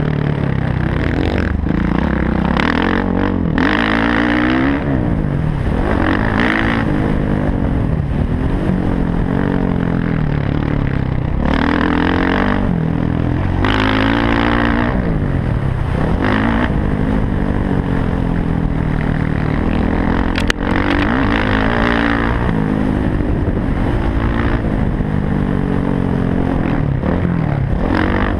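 Dirt bike engine ridden hard, heard from the rider's helmet: its pitch climbs and drops again and again as the throttle opens and closes through the gears.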